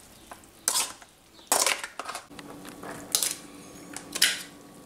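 A metal spoon scraping and clinking against a stainless-steel colander as flaked fish meat is scooped and tipped out, several sharp clatters a second or so apart.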